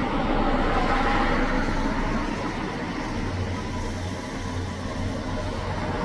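Distant road traffic heard outdoors as a steady rumble and hiss, easing a little in the middle and swelling again near the end.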